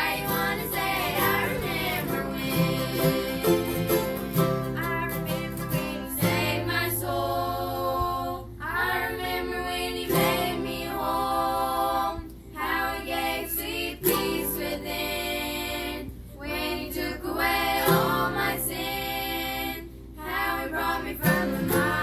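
A group of children singing a song together, accompanied by a strummed acoustic guitar, mandolin and ukulele. The singing comes in phrases with brief breaths between them every few seconds.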